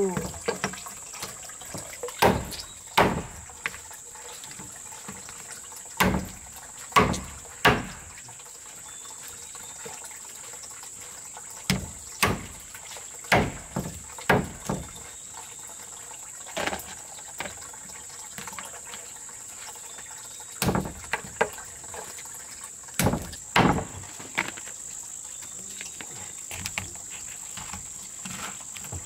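Cleaver chopping through a roast duck onto a wooden chopping block: sharp, irregular chops, singly and in quick pairs, with pauses of a few seconds between. A steady high-pitched insect drone runs underneath.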